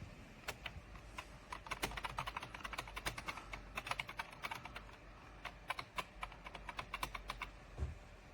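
Typing on a computer keyboard: a quick, irregular run of key clicks, followed by a single soft low thump near the end.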